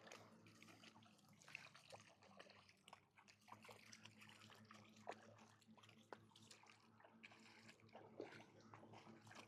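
Near silence: faint scattered small splashes and lapping of shallow lake water, over a low steady hum.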